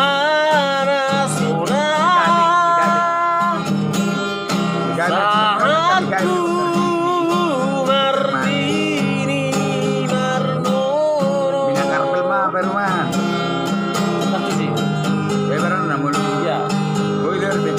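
Music: an instrumental break in a Batak pop song, with guitar accompaniment under a wavering, sustained lead melody.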